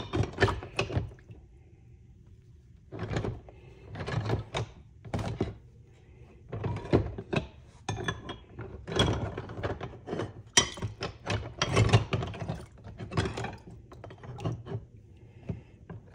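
Rusty steel hand tools, wrenches and pliers, clunking and clinking against each other and a plastic tub as they are shifted around in a soaking bath. Irregular clusters of knocks, with short pauses between handfuls.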